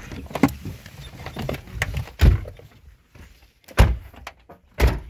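Car doors being shut: three loud thuds in the second half, after a lighter knock near the start.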